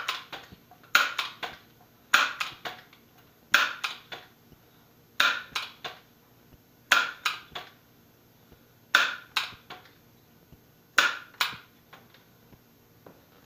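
Crosman Legacy 1000 multi-pump air rifle being pumped: each stroke of the pump lever gives a quick cluster of sharp clacks and clicks. There are about eight strokes, coming a little further apart each time, as the gun's air reservoir is charged for a shot.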